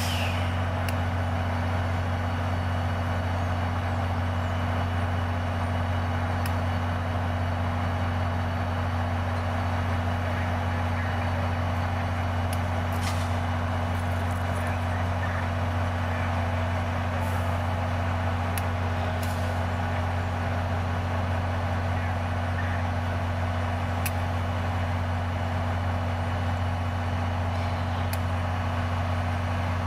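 Diesel locomotive engine running at a steady low idle, a constant deep hum. A few brief faint hisses and ticks come through around the middle.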